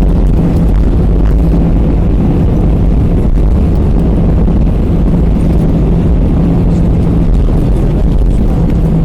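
Airbus A320 engines and airframe heard from inside the passenger cabin: a loud, steady low rumble with a steady hum running through it.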